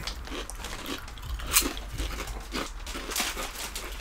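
Close-up crunching and chewing of ruffled potato chips: a run of short crisp crunches, the sharpest about a second and a half in.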